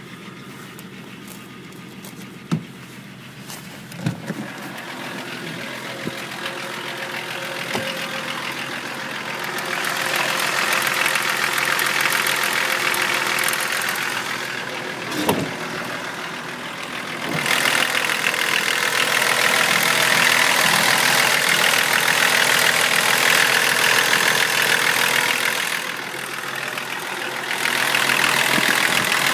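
BMW E34 525tds's 2.5-litre straight-six turbodiesel idling with a crackling rattle (треск) that the owner treats as a fault. It is heard first from the cabin, then louder up close at the open engine bay. A few sharp knocks come in the first fifteen seconds.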